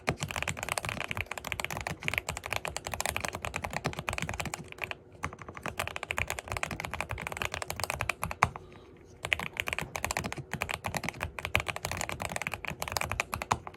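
Fast typing on a Zuoya GMK67 mechanical keyboard with Kailh Ice Cream Pink switches: rapid keystroke clacks in several runs, broken by short pauses about five and nine seconds in.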